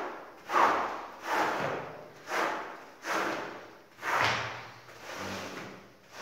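Rubber floor squeegee dragged in repeated strokes across a soaked wool rug, pushing soapy water off it: about seven strokes, roughly one a second, each starting sharply and fading away.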